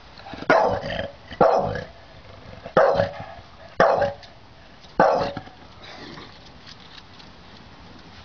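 Staffordshire Bull Terrier barking at a lizard: five sharp barks about a second apart, then the barking stops for the last few seconds.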